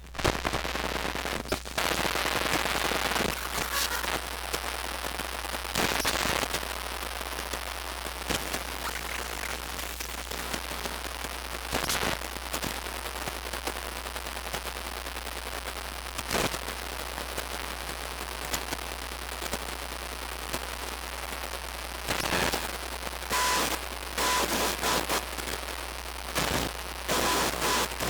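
Electrical static interference sound effect: a steady crackling hiss over a low mains-like hum, broken by sudden bursts of louder crackle, with a few short high beeps near the end.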